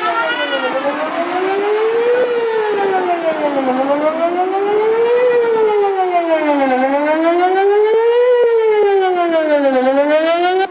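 Whelen WPS-4008 electronic outdoor warning siren sounding a wail during a monthly test, its loud tone rising and falling in pitch about every three seconds.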